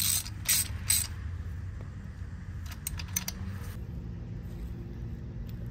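A few quick rustles and light metallic clicks from handling the removed spark plugs, over a steady low hum.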